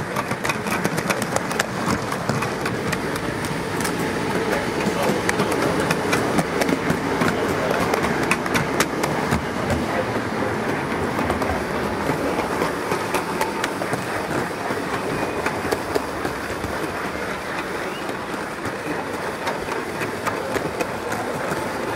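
Gauge 1 model train running along its garden-railway track, heard from on board: a steady rolling rumble of wheels on rail with many sharp clicks over the rail joints, thickest in the first half.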